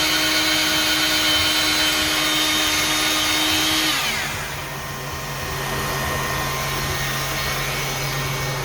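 A hand-held electric power tool's motor running steadily at speed, then winding down about four seconds in, leaving a lower steady machine hum.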